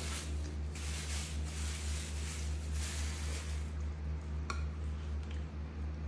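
A monkey's paw and a plastic spoon working soft, wet food in a small ceramic bowl: soft squishing for the first few seconds, then two light clicks near the end. A steady low hum runs underneath.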